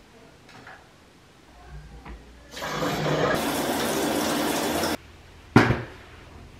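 Overhead shower head running, water spraying onto tile for a couple of seconds and then cutting off abruptly; before it a few faint knocks, and about half a second after it a single short, loud thud.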